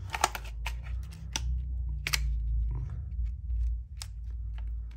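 Hard plastic clicking and knocking as a Taser X26 is pushed and worked into a Blade-Tech polymer holster, a string of irregular sharp clicks over a low rumble of handling.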